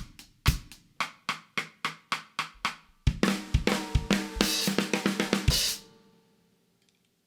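Drum kit played around a CMC maple and bubinga 14x7-inch snare drum: a steady beat of strokes, then about three seconds in a dense fill with cymbals, which stops just before six seconds and rings out.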